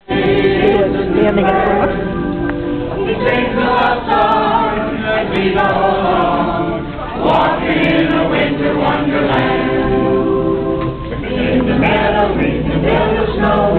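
Small mixed group of men and women carolers singing a Christmas song together.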